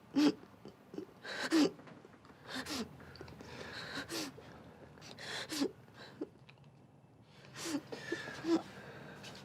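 A person crying: sharp sniffing inhales and gasping sobs about once a second, with short broken whimpers between them.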